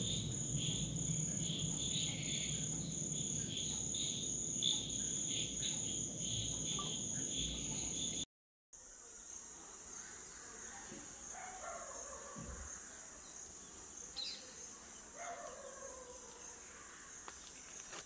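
Insects chirping in a garden: a high, steady drone with a pulsing chirp beneath it. The sound drops out for a moment about eight seconds in, then returns quieter, with a few faint calls.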